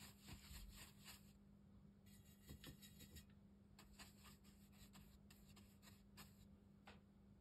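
Faint scratchy strokes of a watercolour brush dabbing paint onto rough cotton rag paper, in short spells with brief pauses between them.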